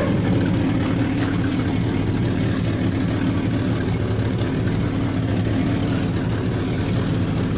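Original 1957 Chevrolet 283 small-block V8 idling steadily on a new carburetor, running as it should.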